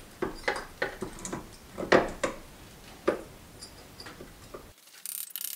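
Irregular light metallic clicks and knocks as the vibration damper is worked onto the crankshaft nose of a BMW M51 diesel engine, the strongest about two seconds in.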